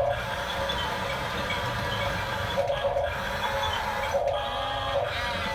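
Huina 1569 remote-control bulldozer's electric drive motors and gearboxes running with a steady whir.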